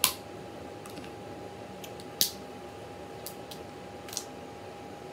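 Cooked Jonah crab claw shell cracking and snapping as it is picked apart by hand: a handful of short, sharp cracks, the loudest about two seconds in, over a faint steady hum.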